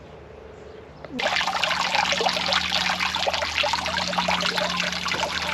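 Garden fountain: water falling from a rock-filled tray and splashing steadily into a stock-tank pond, starting suddenly about a second in.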